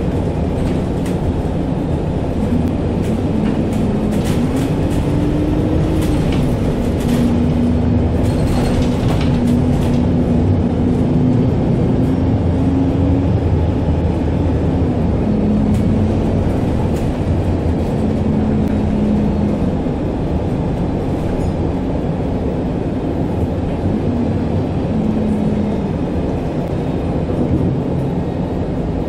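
Cabin sound of an Alexander Dennis Enviro200 MMC bus under way: a steady low drivetrain rumble with a tone that rises and falls as the bus changes speed. A few light clicks and rattles come between about four and ten seconds in.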